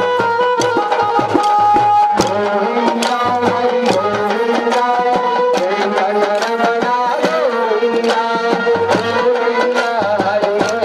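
Kolatam folk music playing loudly: a melody over a repeating drum beat, with many sharp clicks throughout that fit the dancers' wooden sticks striking together.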